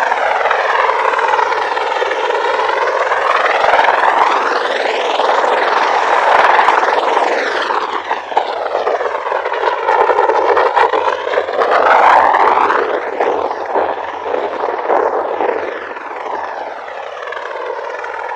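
MV-22 Osprey tiltrotor running loud with its proprotors turning, a dense whooshing roar that sweeps up and down in pitch as the aircraft moves. It grows fainter over the last few seconds as the Osprey lifts off and flies away.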